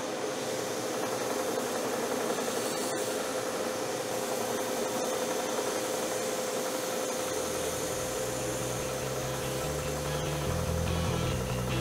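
Homemade 1 x 42 belt sander running with a steady hum and hiss while the edge of a plywood piece is sanded on its belt. Music fades in during the last few seconds.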